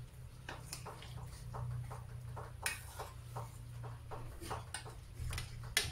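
Metal ladle clinking and scraping against a stainless steel pan as chicken pieces in broth are stirred, giving irregular small clicks and knocks, over a low steady hum.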